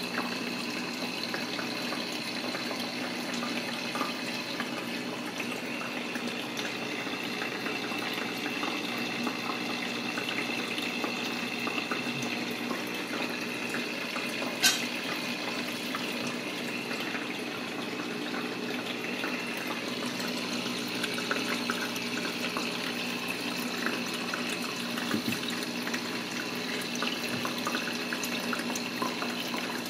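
Small aquarium's filter running: a steady trickle and splash of water falling back into the tank, over a low steady hum. One sharp click about halfway through.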